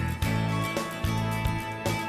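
Background music: a strummed guitar in a country style, with a steady beat.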